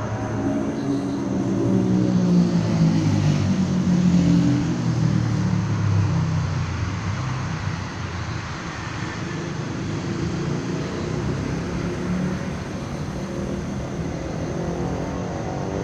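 Steady low engine rumble, like motor traffic, louder in the first few seconds and then evening out.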